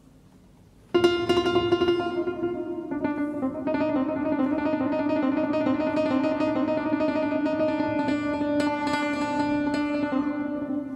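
Instrumental music, nearly quiet for about the first second, then coming in loudly with held notes and quick notes played over them.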